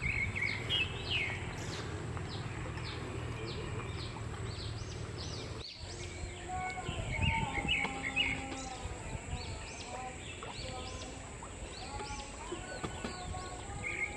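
Birds chirping in short, repeated notes over the steady low rush of a flowing stream; about halfway through, lower whistled calls join in.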